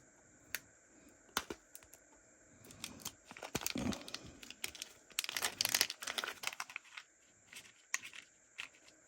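Plastic packaging being torn open and crinkled by hand as a piece of fishing tackle is taken out. Scattered clicks and rustles, with two busier spells of crackling around the middle.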